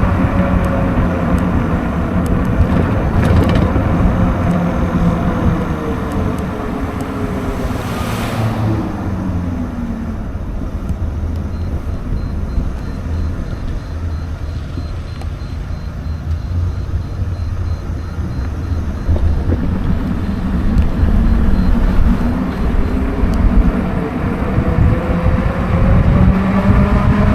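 E-bike motor whine with wind and tyre noise on a wet road: the whine falls in pitch over the first ten seconds as the bike slows, then rises again near the end as it picks up speed. A brief rushing sound comes about eight seconds in.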